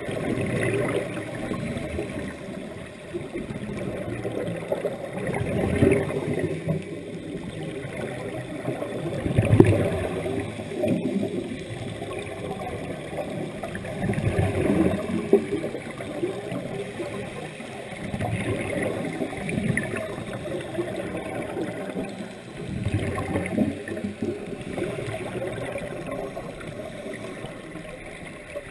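Scuba divers' exhaled air bubbling and gurgling from their regulators underwater, swelling in a surge every few seconds with each breath out.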